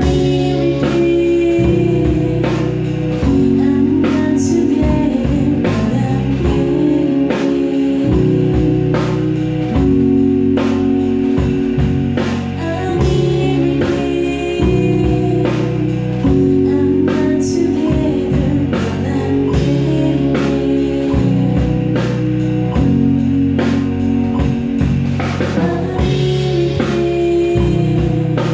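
A band playing live: a young woman singing into a handheld microphone over electric guitar and a drum kit keeping a steady beat.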